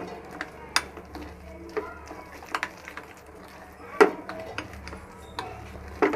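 A thick yogurt-and-spice marinade being stirred and mixed in a bowl, with irregular clinks and knocks against the bowl, the loudest about four seconds in.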